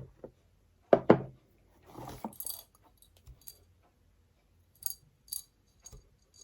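Objects from a package being handled and set down: two sharp knocks about a second in, some rustling, then a few light clinks that ring briefly.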